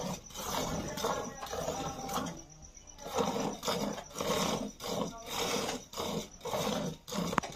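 Hand-milking a cow: jets of milk squirting into the frothy milk in a steel bucket, a rhythmic swishing of about two to three squirts a second, with a short pause about two and a half seconds in.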